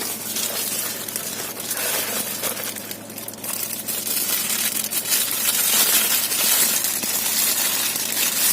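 Packaging rustling and crackling as a camera lens is unwrapped, with a rapid jumble of small crackles that gets louder about halfway through.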